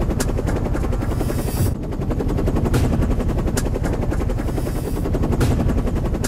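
Helicopter rotor chopping steadily, with a few sharper cracks over it.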